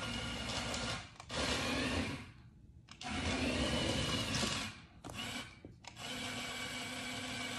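Remote-control toy truck's small electric motor whirring in three bursts of about one to two seconds each as it drives across a wooden floor, then a steady hum from about six seconds in.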